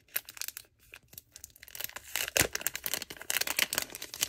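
Clear cellophane sleeve crinkling and crackling as it is opened and a pad of sticky notes is pulled out. Scattered crackles at first, then denser crinkling from about halfway, with one sharper snap.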